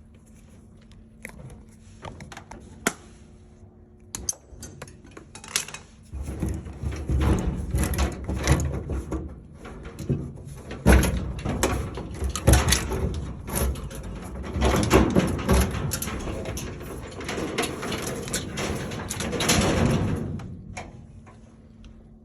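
Knocks, clatter and scraping of parts and tools being handled while old furnace equipment is pulled out, a few scattered clicks at first, then busy and louder from about six seconds in until near the end.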